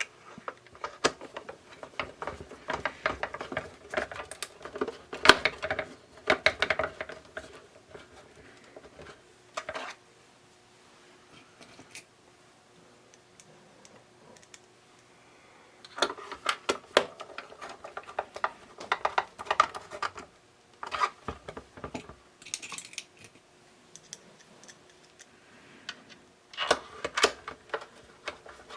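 Clusters of small, rapid clicks and rattles from a screwdriver driving screws into the plastic case of a small radio-cassette player and handling the case, with quiet pauses between the bursts.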